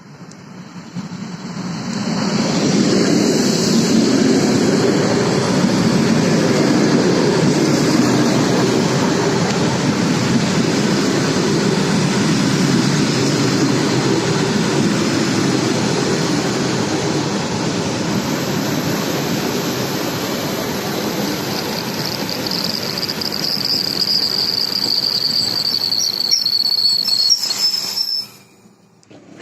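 ED4M electric multiple unit running on the rails: wheel and track noise builds over the first two seconds and stays loud. A high wheel squeal joins over the last several seconds, and then the sound cuts off abruptly.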